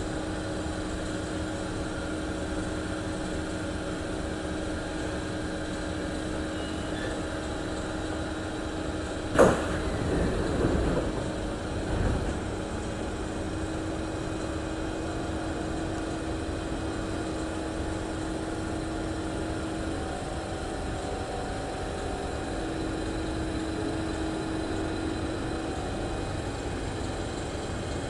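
Singapore MRT train car standing at a station with a steady hum from its ventilation and on-board equipment. About nine seconds in comes a sharp clunk, followed by a couple of seconds of falling whirring as the doors release and slide open.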